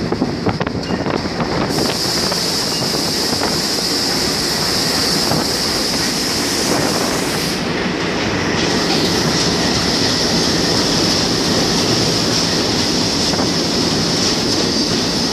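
Passenger train running, heard loud from the open doorway of a coach: steady rumble of wheels on the rails with a clickety-clack, and a high wheel squeal that comes in about two seconds in and holds. The train passes into a tunnel, which closes the sound in.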